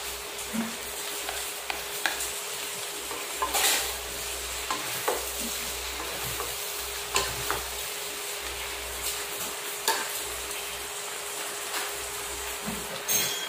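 Chopped pork sisig sizzling in a stainless steel wok on a portable gas stove while a wooden spatula and a metal spoon stir and scrape through it, with a few sharp clinks of the utensils against the pan.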